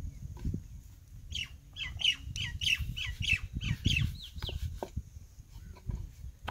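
A bird calling a quick series of short, high notes, about three a second, starting about a second in and running for some three seconds. Beneath it, low knocking and rubbing as roti dough is patted and rolled out with a wooden rolling pin on a wooden board.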